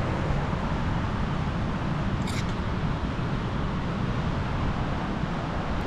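Storm-force wind blowing steadily through pine forest and rumbling on the microphone, with one brief sharp click about two seconds in.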